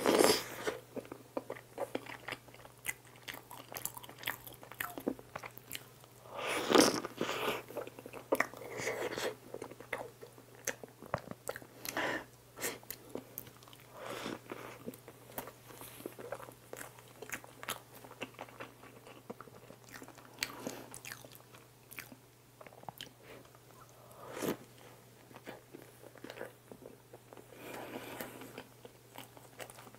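Close-miked eating of soft cake-like bread dipped in whipped cream: wet bites and steady chewing with small mouth clicks. The loudest bites come at the very start and about seven seconds in.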